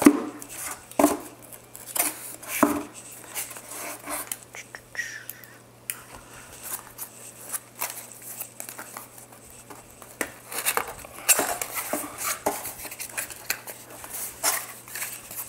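A cardboard shipping box being opened and handled by hand: scattered sharp clicks and knocks with rustling of cardboard, a few strong knocks in the first seconds, then busier handling in the last few seconds.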